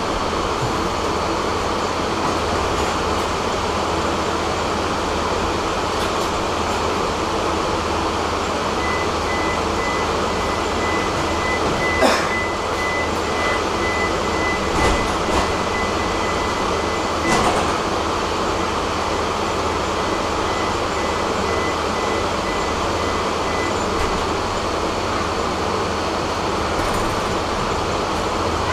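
Tram running along the line, heard from on board: a steady rolling rumble with a faint, steady high tone through the middle and two sharp knocks about five seconds apart.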